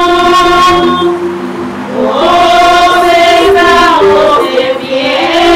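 A woman singing live into a microphone in the Colombian Pacific cantaora style, sliding between long held notes, over a steady held tone beneath.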